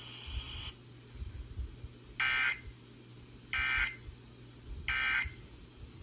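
Three short, identical bursts of screechy data tones, the Emergency Alert System end-of-message code that closes an alert, heard through a Baofeng handheld radio's small speaker. The first comes about two seconds in, the others follow about a second and a half apart, over a low steady hum.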